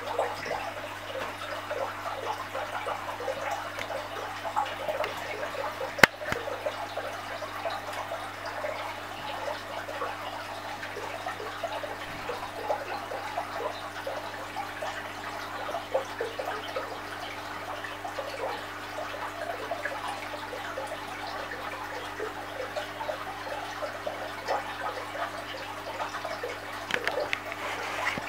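Aquarium water trickling and splashing continuously over a steady low hum, with one sharp click about six seconds in.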